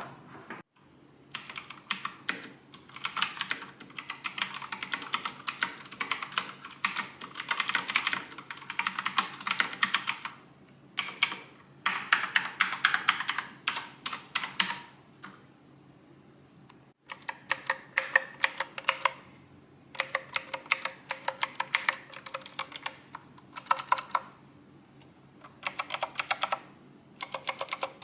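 Typing on a Dareu EK145 keyboard: dense runs of rapid key clicks lasting a few seconds each, broken by short pauses.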